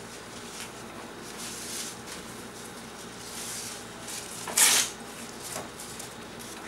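Crepe paper rustling as it is picked up and handled, with one short, loud crinkle a little past halfway.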